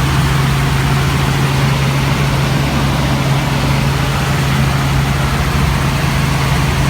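Steady, loud engine and rotor drone heard from inside a helicopter cabin: a strong low hum over a constant rushing hiss.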